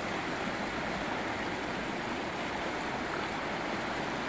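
Shallow mountain river rushing steadily over rocks and through small rapids: a constant, even sound of running water.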